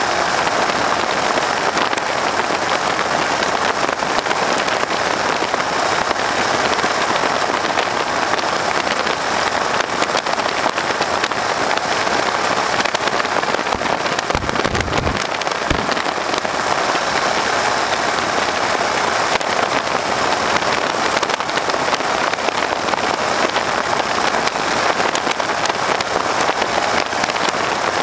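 Steady rush of airstream and engine noise in the open cockpit of a PT-13 Stearman biplane in flight, the wind buffeting the microphone. A short, deeper buffet comes about halfway through.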